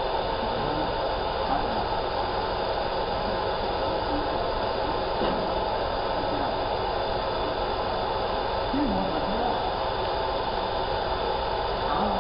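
Steady blower-like hum of a laser marking machine running while it engraves a picture into a metal sheet, with faint voices about nine seconds in and near the end.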